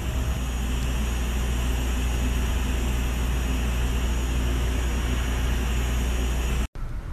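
Steady hiss over a strong low hum. It cuts out abruptly near the end and gives way to a fainter hiss.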